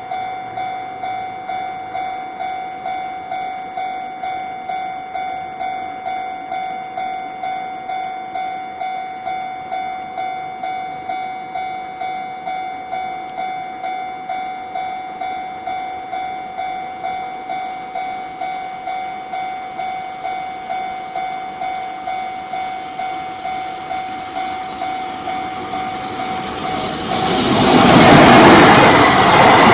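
Japanese level-crossing warning bell ringing steadily, an electronic ding repeating about twice a second. Near the end, a train arrives, and its loud rushing noise swells up and drowns the bell.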